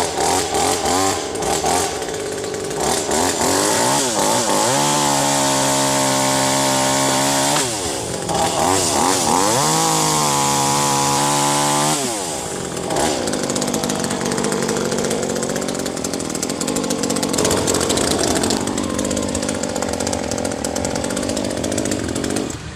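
Chainsaw engine revving: a few quick blips, then held at full throttle twice for a couple of seconds each with drops in between. From about halfway, it runs rougher at lower, wavering revs.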